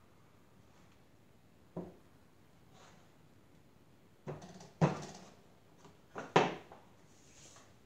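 Handling sounds of hand tile-making: a light knock about two seconds in, then a few louder clunks around five seconds and again about six and a half seconds in, as clay scraps and a hexagonal tile mold are picked up and set down on the work board.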